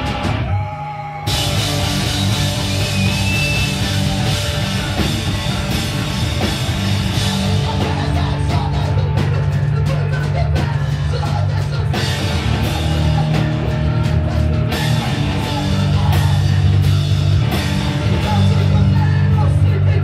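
Hardcore punk band playing live: distorted electric guitar and pounding drums, loud and dense. A short break about a second in, after which the full band comes back in.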